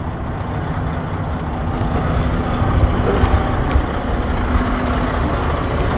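Freightliner semi truck's diesel engine idling steadily.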